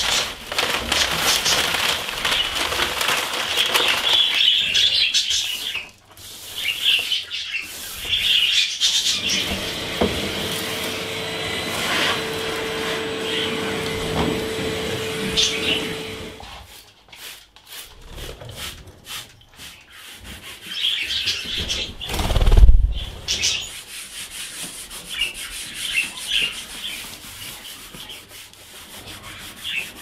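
A rubbing, scrubbing-type noise, loudest through the first half, with budgies chirping now and then, and one heavy low thump about two-thirds of the way through.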